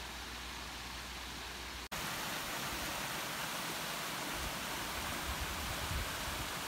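Steady rushing of flowing stream water. It breaks off sharply about two seconds in and resumes a little louder.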